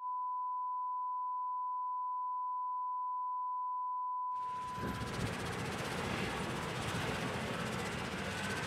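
A steady test-tone beep at a single pitch, held for about four and a half seconds, then cut off abruptly as a steady background of rumbling noise takes over.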